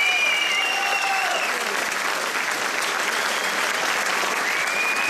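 Arena crowd applauding, with long shrill whistles from spectators at the start and again near the end.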